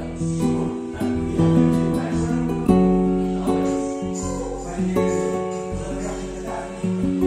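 Background music led by acoustic guitar, with plucked notes and chords changing every second or so.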